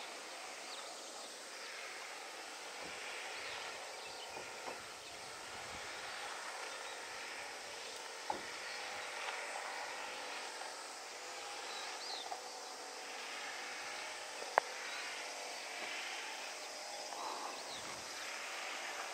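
Steady outdoor background of insects buzzing, with a few short bird chirps and two sharp clicks, the louder one about three quarters of the way through.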